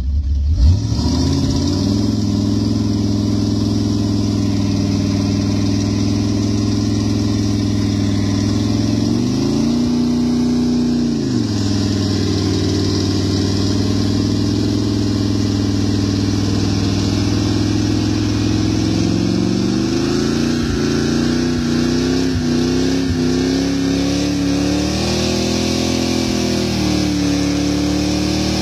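1976 Lincoln Mark IV's 460 big-block V8 through straight-piped true dual exhausts, held at high revs in a long burnout. The engine note climbs and drops back about a third of the way in, then wavers up and down through the second half.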